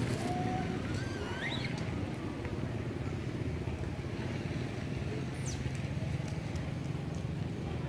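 A motor engine running steadily, a continuous low drone, with a few short high squeaks or chirps a second or two in and again about five and a half seconds in.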